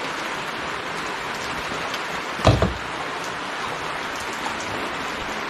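Heavy rain pouring down steadily. About halfway through there is a loud double knock.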